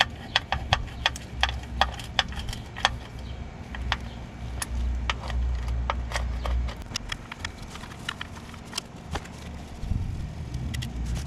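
Hand ratchet clicking in short irregular runs as the lower oil pan bolts are run in, with a low rumble of handling between about four and seven seconds in.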